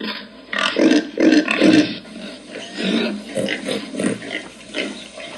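Domestic pig grunting: a run of short, rough grunts, each one a short sound.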